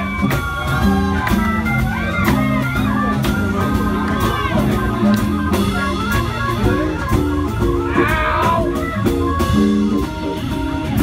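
Live blues band playing: a guitar melody with bending notes over drums and a bass line.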